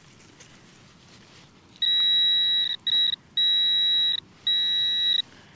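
Handheld metal-detector pinpointer sounding a steady high-pitched alarm tone while held against a clod of soil, signalling metal inside it: a square iron nail. The tone starts about two seconds in and sounds four times, the second only briefly, with short breaks between.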